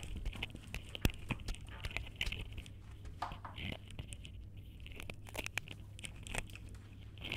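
Scattered light clicks and brief rustling over a steady low hum.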